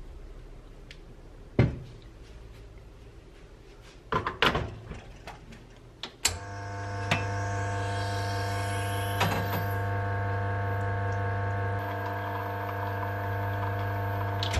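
Knocks of tamping and the portafilter clacking into the espresso machine's group head, then, about six seconds in, the machine's pump starts and hums steadily as an espresso shot brews into a mug, with one clink of the mug set down on the drip tray.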